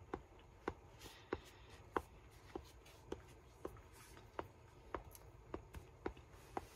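A person chewing a mouthful of food with faint mouth smacks, about one and a half a second.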